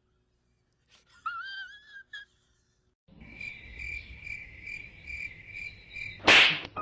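Cricket chirping sound effect: a steady, high-pitched chirp repeating about two and a half times a second, cut off near the end by a short, loud burst of noise. It is preceded by a brief wavering, pitched tone about a second in.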